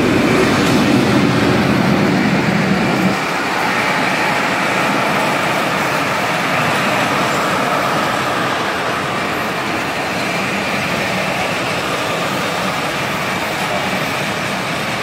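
Diesel-electric locomotive passing close with its engine running, then, about three seconds in, the engine sound gives way to the steady rumble of passenger coaches rolling past on the rails.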